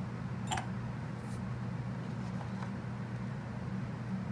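A steady low hum with a sharp click about half a second in and a few faint ticks later: a brake pad being handled against a brake caliper.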